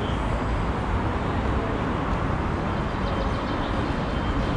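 Steady city street noise: a continuous rumble and hiss of traffic passing.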